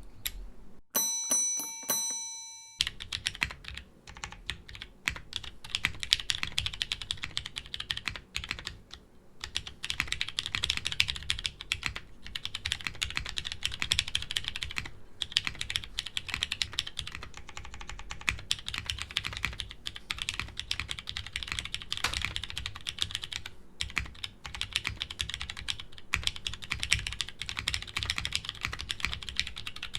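Continuous fast typing on an Ophanim custom mechanical keyboard, a steady stream of key clacks with short pauses. About a second in, a brief chime rings and fades just before the typing starts.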